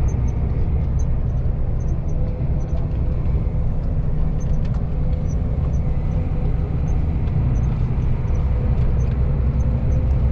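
Steady drone of a Volvo FH truck's engine and road noise heard inside the cab while driving, with a thin steady whine and faint light ticks now and then.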